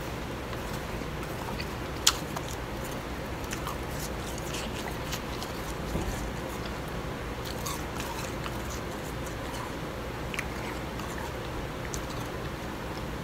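Close-up chewing and crunching of blended bag ice, small crackles and clicks scattered over a steady hiss, with one sharp click about two seconds in.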